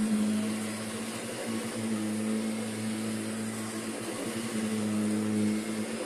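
Kirby Sentria upright vacuum cleaner running steadily while pushed over a rug: a constant motor hum over airflow hiss, the pitch wavering slightly as it moves.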